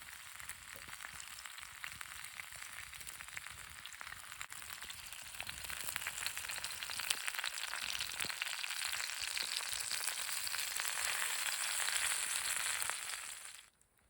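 Food frying in hot oil in a pan, a steady sizzle that grows louder about halfway through and then cuts off abruptly just before the end.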